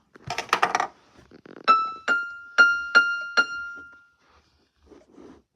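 Digital piano key played five times on the same high note, about two strikes a second, each note ringing briefly and fading, to show that the piano has power from the outlet.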